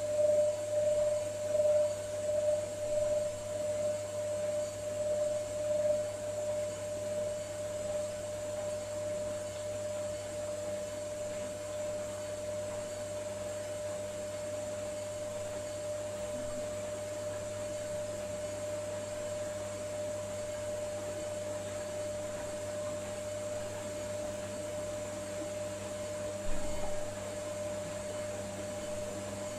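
Hotpoint Ariston Aqualtis washing machine running the first rinse of its wool programme: a steady hum with a constant tone over it, uneven for the first few seconds and then even, with one short thump near the end.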